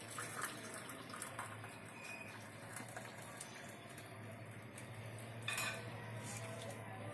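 Light clinks and scrapes of a pan and tea strainer against a cup as boiled ginger-and-tulsi water is strained into it, with a louder clink about five and a half seconds in.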